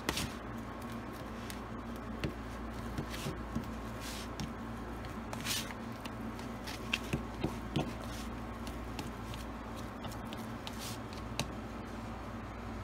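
A fork stirring and fluffing freshly microwaved rice in a plastic container: light scattered scrapes and soft taps, with a few sharp clicks of the fork against the container about halfway through.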